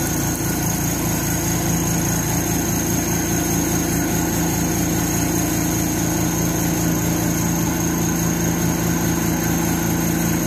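Electric coil-winding machine running steadily while copper wire is wound onto a fan stator: a constant motor hum with a high whine over it.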